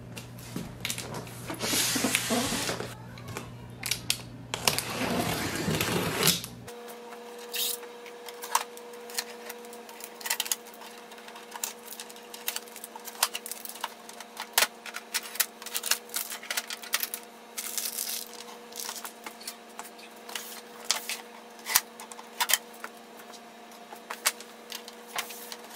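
Printer packaging being handled in two long rustling, scraping stretches. Then many short clicks and taps as protective tape and packing pieces are pulled off the plastic body of an Epson XP-5200 inkjet printer, over a faint steady hum.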